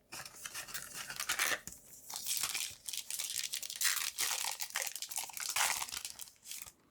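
Yu-Gi-Oh booster pack's foil wrapper being torn open and crinkled in the hands, a run of crackly tearing and rustling.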